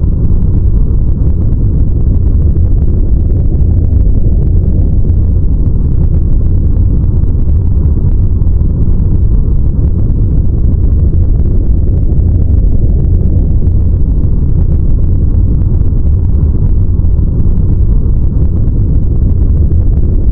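A loud, steady, deep rumble that does not change, with no distinct events: a low noise drone offered as the sound of an asteroid.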